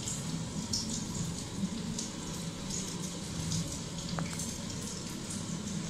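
Steady low hum and hiss of background room noise, with a few faint, short clicks and taps scattered through it.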